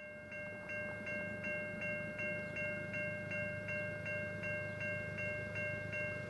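Level crossing warning bell ringing at an even pace, a little under three strokes a second, over a steady tone. A low rumble from the approaching train lies underneath.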